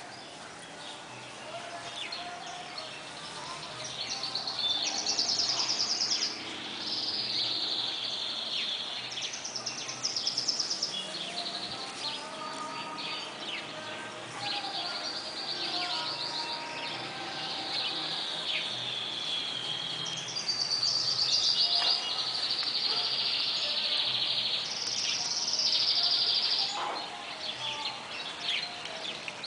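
Songbirds singing a long run of high, rapid trills, one phrase after another with short gaps, some phrases sliding slightly downward.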